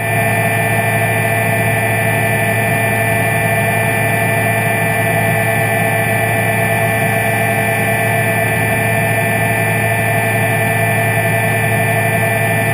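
Underwater scooter (diver propulsion vehicle) motor running at constant speed: a steady, unchanging droning whine.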